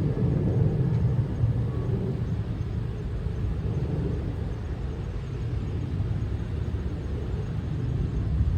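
Low, steady rumble of a distant jet airliner taking off.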